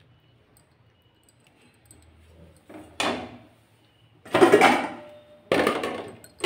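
Steel ladle scraping around the inside of a kadai, ladling out the last of the curry: three rough scraping strokes and a short fourth, the loudest a little over four seconds in.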